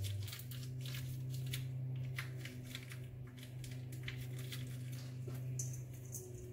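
A Jumbo seasoning cube being crumbled between the fingers: faint, irregular crinkling and crackling clicks. A steady low hum runs underneath.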